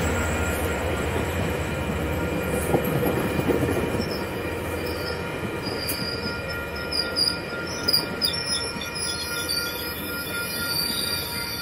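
Caltrain bilevel passenger cars rolling past close by, a steady rumble of wheels on rail with several steady high-pitched ringing tones over it, slowly easing off as the train moves along.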